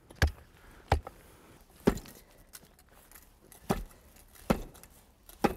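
Steel hand tamper striking down onto paver base of stone dust and aggregate in a pothole, compacting the layer: six separate thuds at irregular spacing.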